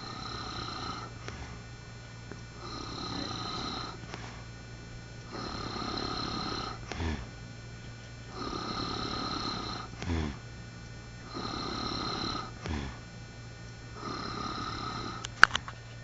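A man snoring in his sleep, about six snores roughly three seconds apart, pig-like, a few of them ending in a short falling grunt. A sharp click near the end.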